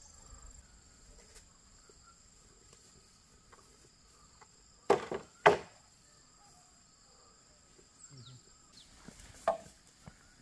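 Three sharp wooden-sounding knocks in quick succession about five seconds in, and one more a few seconds later. Under them, insects keep up a steady high drone.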